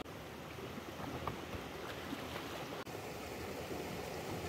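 Shallow stream running over rocks: a steady rushing hiss of flowing water.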